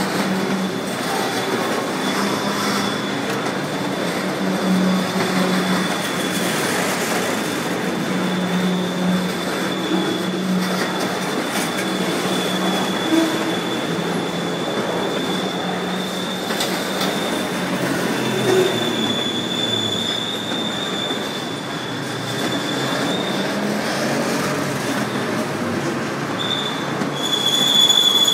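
Freight train boxcars rolling past, a steady rumble with a thin, high wheel squeal held over it and an occasional knock. It gets louder and the squeal stronger near the end.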